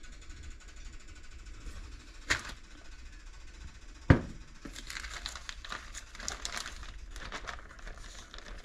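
A sharp knock, then a heavier thump of a pot against a countertop, followed by a plastic bag crinkling and rustling as a freshly pressed tortilla is peeled off it.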